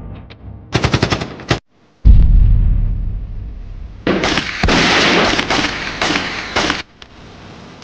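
Battle sound effects of gunfire: a rapid machine-gun burst about a second in, a loud boom with a fading rumble just after two seconds, then a longer spell of dense gunfire from about four seconds in that stops near seven seconds.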